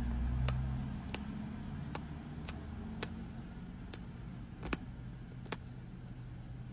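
Steady low rumble of a moving car heard from inside the cabin, with faint short clicks every half second to a second.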